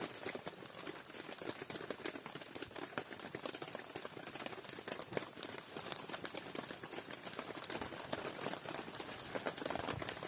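Wood campfire burning and crackling, with many irregular sharp pops and snaps.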